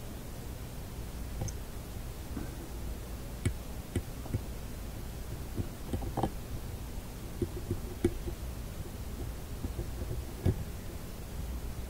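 A handful of small irregular clicks and taps as a meter test probe tip is worked against a coil's fine lead wire and solder lug, over a low steady hum.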